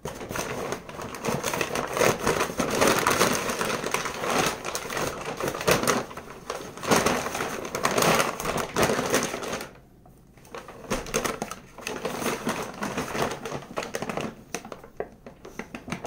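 A cloth rubbing polish off a guitar body's finish by hand, in fast, steady scrubbing strokes that stop for about a second around ten seconds in. The polish has begun to dry and is tough to get off.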